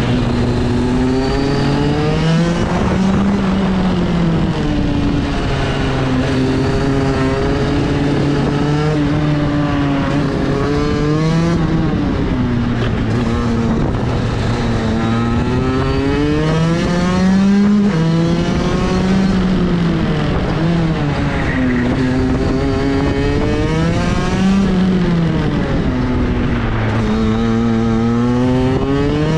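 Racing kart engine heard onboard under hard driving. Its pitch climbs as the kart accelerates and drops back as it slows for corners, over and over.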